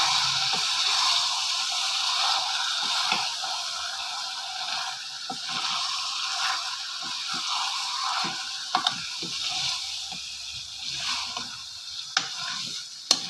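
Marinated beef chops and onions sizzling as they fry in oil in a pan, with a spatula scraping and knocking against the pan as they are stirred. The sizzle grows gradually quieter, and there is a sharper knock near the end.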